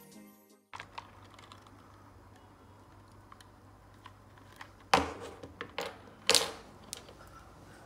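Light handling clicks of fishing line and a hand-held scale. About five seconds in comes a sharp snap as the knotted leader line breaks under tension, followed by another loud knock and a few smaller clicks.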